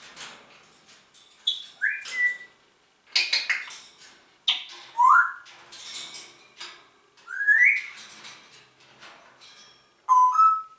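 Congo African grey parrot whistling: three rising whistles, with harsh, noisy calls between them, and a short two-note whistle stepping up near the end.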